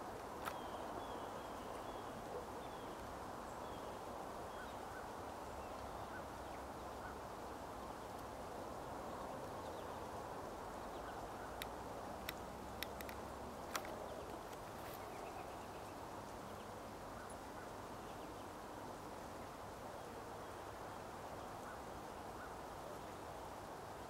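Steady outdoor hiss of open grassland, with a few faint high chirps in the first few seconds and four sharp clicks a little before the middle.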